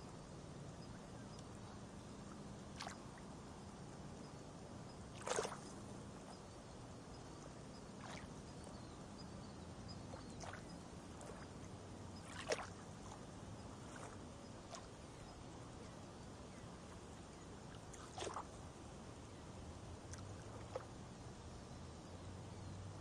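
Calm sea water lapping gently at a shallow pebble shore: a faint steady wash broken every few seconds by a small, soft splash, the clearest about five, twelve and eighteen seconds in.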